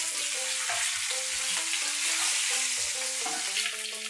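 Whole boiled eggs and potatoes sizzling in hot mustard oil in a nonstick frying pan, with a wooden spatula stirring and turning them. Soft background music plays underneath.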